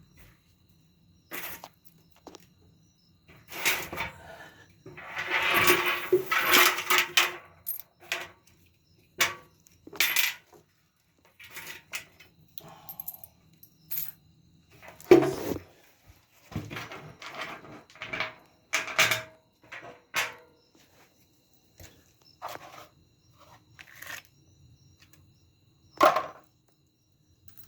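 Metal parts of a Kenmore dryer being handled: scattered clinks, knocks and clatter, with a longer stretch of rattling and scraping about four to seven seconds in.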